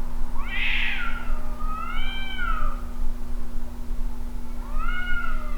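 Cats screaming at each other outside: long wavering yowls, like a child screaming. There are about three drawn-out cries that rise and fall, the last starting near the end. A steady low hum runs underneath.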